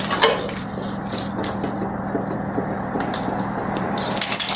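Light clicks, rattles and knocks of a Crown Victoria dashboard wiring harness, its plastic connectors and clips being wiggled and pulled free of the dash frame, over a steady low hum.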